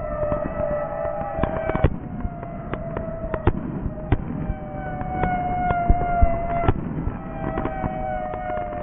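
Fireworks sound effect: whistling tones that slide slowly down in pitch, one after another, over a scatter of sharp crackling pops.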